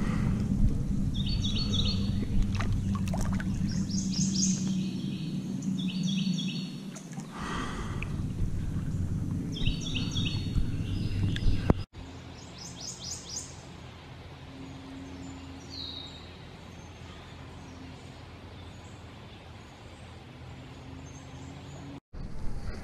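A prothonotary warbler singing a short phrase of rapid, repeated high notes, about four times. A steady low rumble underlies the first half and stops about halfway through.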